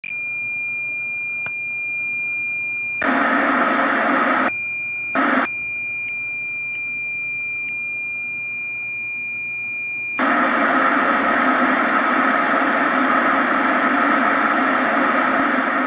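Old-television intro effects: a steady high-pitched test-pattern beep, broken twice by short bursts of TV static hiss. About ten seconds in the beep stops and continuous static hiss takes over.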